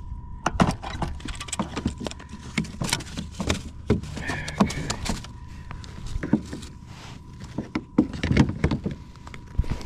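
Irregular knocks, clicks and rattles of fishing gear and a caught fish being handled on a plastic pedal kayak, with a faint steady tone underneath.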